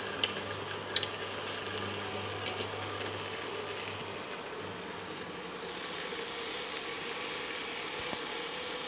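Induction cooktop running at high power with a steady buzzing hum and a high whine that fades out about six seconds in, heating a water bath for double-boiling. A spoon clicks against the glass bowl a few times in the first three seconds.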